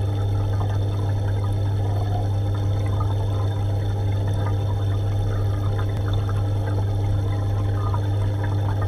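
Aquarium pump running with a steady low hum, over water trickling and bubbling in the tank.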